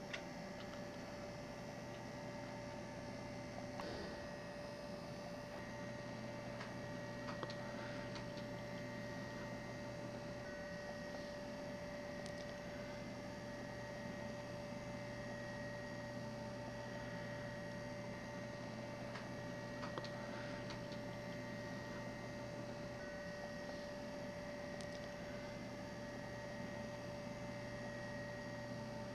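Steady electrical hum with a few faint ticks scattered through it.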